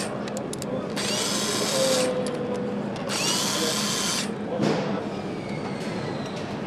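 A handheld power tool running in two short bursts of about a second each, each one rising in pitch as it spins up and then holding steady, over a steady hum. A single knock comes about four and a half seconds in.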